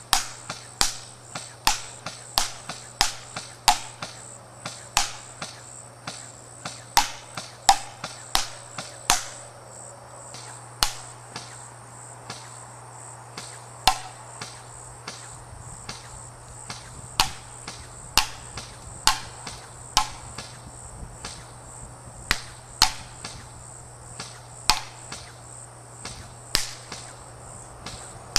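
Airsoft electric guns firing single semi-auto shots, about one or two a second, each a sharp click, with a lull in the middle. A steady high chirring of crickets runs behind them.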